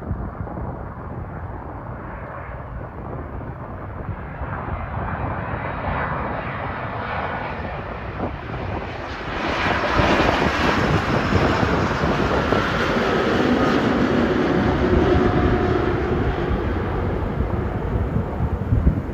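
A passing aircraft's engines: a rushing noise that swells over about ten seconds, then holds at its loudest with a faint steady whine and eases a little near the end.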